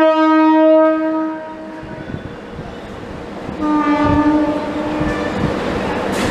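Horn of an Indian suburban electric local train sounding two blasts a couple of seconds apart, the first a little louder and the second a little longer: the departure signal before the train pulls out.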